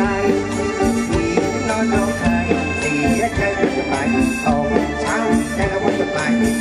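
Thai luk thung band music with a steady beat and a sustained melody line, played loud through the stage sound system.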